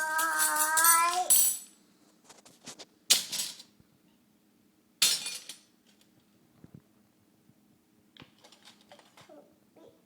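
A child's held, wavering vocal note for about a second and a half, then two loud jangling crashes of metal spoons about two seconds apart, each ringing off quickly, and faint light clinks near the end.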